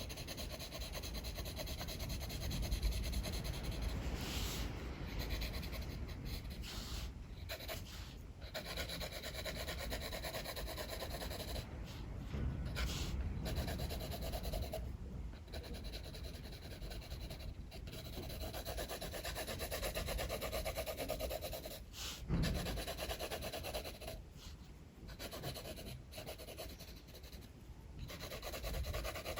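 Drawing strokes scratching across paper, going on and off with short pauses between strokes, over a steady low rumble of strong wind.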